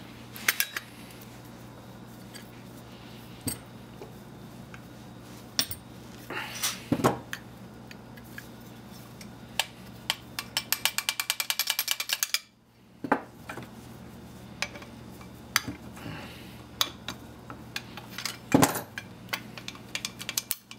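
Metal clinks and knocks from a brass faucet body and its copper tubing being handled and cut with hand tools. About ten seconds in, a fast run of ratchet clicks lasts about two seconds and ends abruptly.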